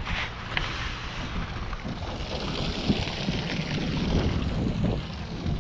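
Wind buffeting the microphone over the steady low rumble of a fishing boat at sea, with one brief knock about three seconds in.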